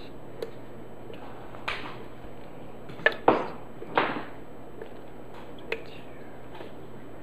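Small hand-handling noises as vitamin E softgel capsules are squeezed open over a plastic blender jar: scattered light clicks and taps, with two louder brushing sounds about three and four seconds in.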